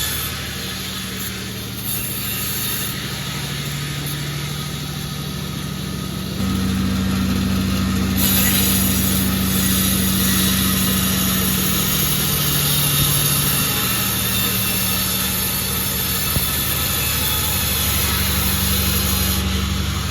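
Pandan36 sawmill running steadily with a low engine note that gets louder about six seconds in. A high hiss joins about eight seconds in and fades near the end.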